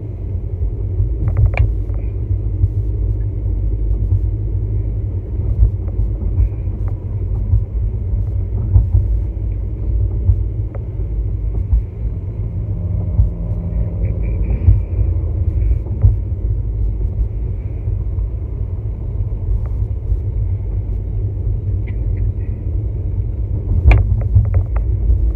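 Steady low rumble of road and engine noise inside a moving vehicle's cabin, with a few faint clicks and a sharper knock near the end.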